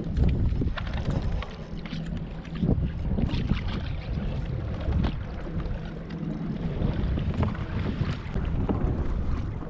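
Wind buffeting the microphone and water slapping against a small boat's hull, a steady low rumble broken by irregular knocks and splashes.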